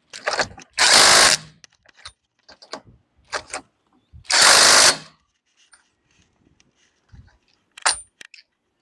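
Impact wrench working wheel lug nuts in bursts: a short one at the start, two longer ones about a second and four and a half seconds in, with scattered clicks and knocks of tools and parts between.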